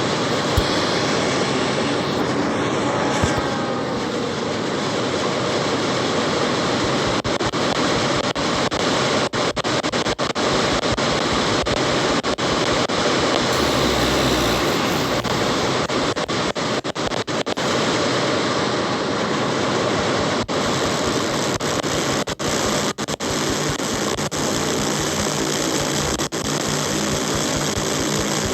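Steady, loud engine noise, with brief dropouts in the second half.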